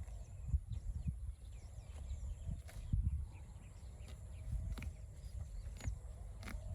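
Scattered knocks and thuds, like cattle hooves stepping, over a low wind rumble, with small birds chirping high in the background.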